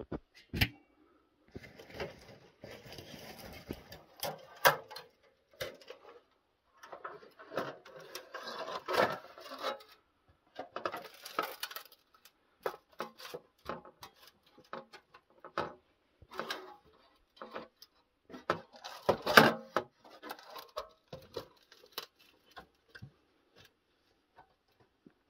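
Thin sheet-metal panels of a folding Winnerwell ultralight wood stove being unfolded and clipped together by hand: a run of light metallic clicks, clanks and scrapes, with one sharper clank about three quarters of the way through.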